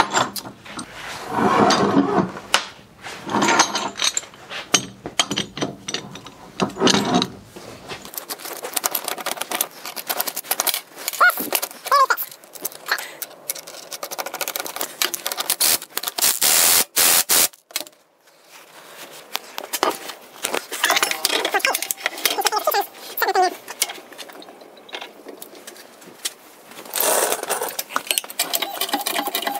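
Metal tools and parts clinking, knocking and scraping as a bearing puller is worked on a Yamaha 701 two-stroke crankshaft to pull off its big-end bearing. A louder burst of rasping noise comes about sixteen seconds in.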